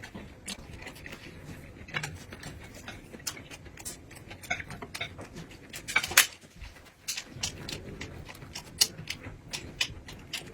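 Eating sounds: irregular clicks and smacks of chewing, with utensils tapping against dishes, one louder click a little past halfway.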